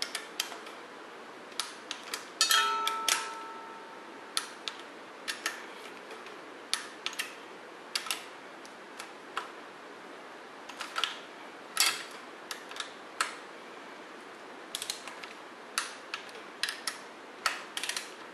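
Scattered sharp clicks and taps of a torque wrench and socket extension working the bolts of a cast-iron exhaust manifold on a Chevy 350 small block as they are torqued to 20 foot-pounds. About two and a half seconds in, one louder metallic clang rings briefly.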